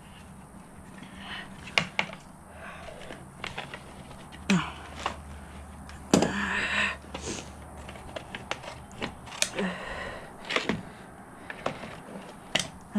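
Scattered sharp clicks and knocks from scissors and a plastic plant pot being handled on a wooden floor, with a rustling scrape about six seconds in, over a low steady hum.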